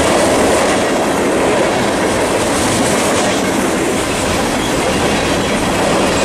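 A long freight train's cars rolling past, a loud, steady noise of wheels on the rails that holds even throughout.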